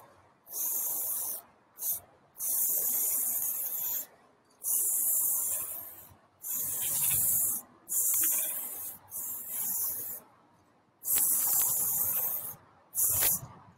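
Aerosol spray-paint can fitted with a skinny cap, spraying in repeated hissing bursts of about a second or a second and a half, with short pauses between them as the line work is laid down.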